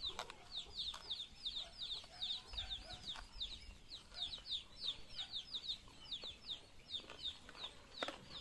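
A bird chirping: a long, rapid series of short, high chirps that fall in pitch, about three or four a second.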